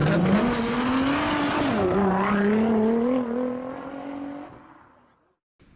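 Sound effect of a car engine revving, its pitch climbing, dipping about two seconds in and climbing again, then fading out about five seconds in, followed by a cut to faint room tone.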